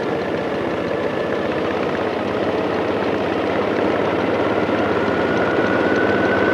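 Ride-on scale live steam locomotive running along its track, a steady rough mechanical noise that grows slowly louder, with a faint high steady tone joining in past the middle.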